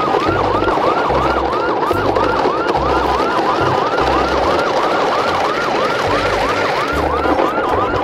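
Emergency-vehicle siren in a fast yelp, its pitch sweeping up and down about two and a half times a second, with a low pulsing rhythm underneath.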